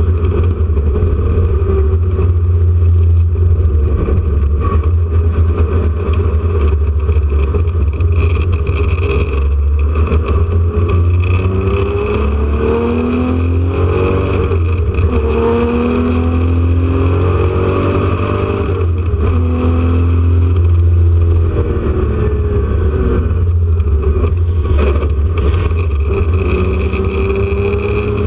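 1979 Porsche 911 RSR's air-cooled flat-six racing under load, with a heavy rumble and the engine note climbing and dropping again and again through the gears.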